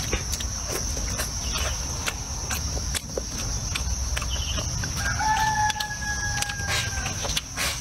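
A rooster crowing once: one long held call lasting about two seconds, starting about five seconds in. A steady high-pitched hum and short clicks run underneath.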